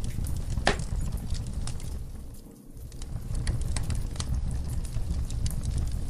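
Wood logs burning in a fireplace: a steady low rumble with irregular sharp crackles and pops. The sound fades briefly about halfway through and then comes back.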